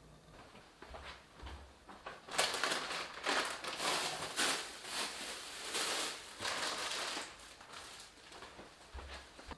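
Grocery packaging being handled, rustling in a string of bursts from about two seconds in until near the end, with a few soft knocks.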